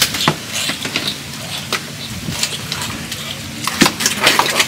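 Live catfish thrashing in shallow water in a plastic basin as a hand grabs at them: wet splashes and slaps, with a busier flurry near the end.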